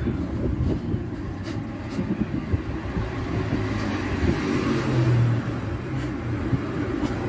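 Street traffic: cars driving past on the road, with one passing close and loudest about four to five seconds in, its engine a low hum over the tyre noise.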